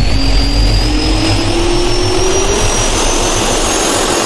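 Jet-engine spool-up sound effect: a whine that rises steadily in pitch over a loud, steady rush of air.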